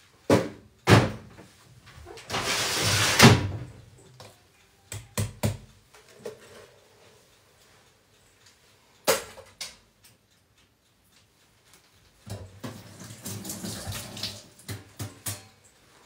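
Kitchen handling sounds: a series of sharp knocks and thuds from cupboard doors and items being moved, with two longer stretches of rushing noise, one about two seconds in and one near the end.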